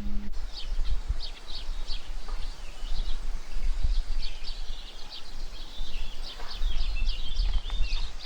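Small birds chirping busily and continuously in short repeated notes, over a steady low rumble.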